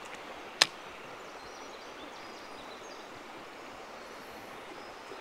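Steady rush of a rocky river's current, with one sharp click a little over half a second in.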